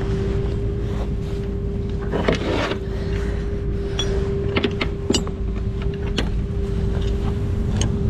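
Tow truck running with a steady whine over a low rumble, with scattered metallic clinks and knocks as a tow hook and chain are handled.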